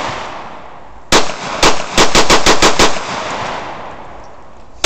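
Glock 17 9 mm pistol being bump-fired: two single shots about half a second apart, then a rapid string of about six shots in under a second. Their echo dies away over the next second or two, and one more shot comes at the very end.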